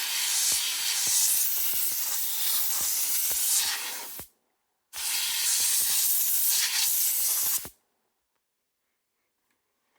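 Can of compressed air spraying in two long hissing blasts at a PS5's ports and vents to blow out dust, the first stopping about four seconds in and the second running from about five seconds to nearly eight.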